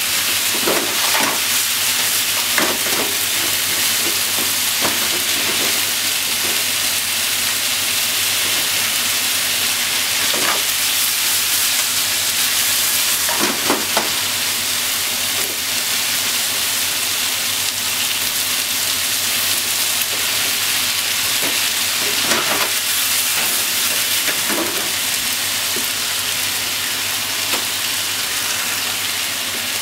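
Pork and vegetables sizzling steadily in a frying pan as they are stir-fried, with a few short knocks of chopsticks against the pan.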